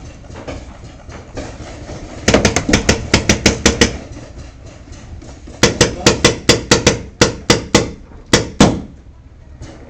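Magfed paintball marker firing close by: a quick string of about ten shots, then after a short pause a slower string of about a dozen more.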